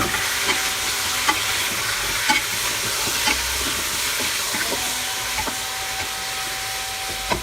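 Chicken pieces and ground onion frying in hot oil, sizzling steadily, with occasional clicks from being stirred in the pan.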